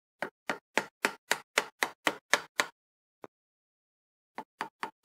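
A run of sharp knocks, about four a second, then a single knock and three quicker ones near the end, as the constant-velocity joint is tapped down onto the splined end of a Mercedes GL driveshaft, short of the point where its lock ring seats.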